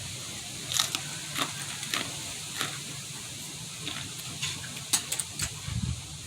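Irregular wet crackles and crunches of someone chewing a raw jalapeño pepper, over a steady background hiss.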